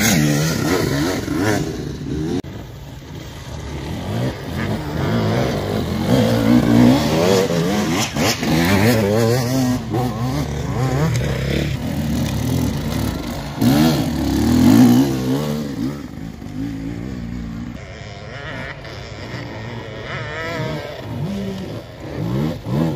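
Enduro dirt bike engines revving unevenly as riders push through deep mud, the pitch rising and falling again and again; loudest a little past halfway.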